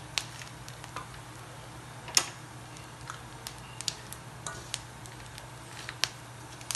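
Irregular light clicks and taps of a spoon and pili nuts against the pan as the nuts are stirred in cooking sugar, over a steady low hum.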